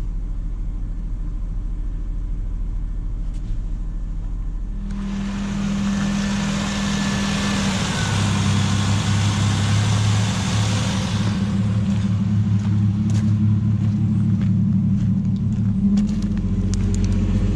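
Ford Ranger's engine running at idle during a scan-tool engine test. A steady hiss lies over it from about five seconds in until about eleven seconds, and the engine note shifts lower around eight seconds.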